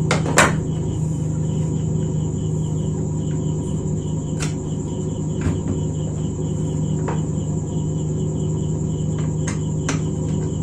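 Steady low electrical hum with a high whine and a rapid pulsing chirp behind it, broken by a few sharp clicks and knocks of the induction cooktop's plastic housing and parts being handled as the coil is lifted out.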